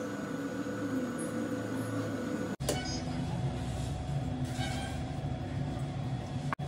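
A steady mechanical drone with a constant hum. It drops out for an instant about two and a half seconds in, then runs on with a deeper rumble.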